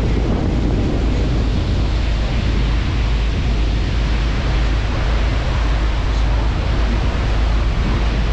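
Steady, loud rushing noise of wind and water, with wind buffeting the microphone.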